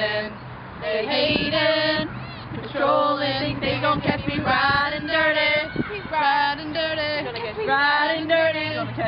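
Young female voices singing a wavering melody in several phrases.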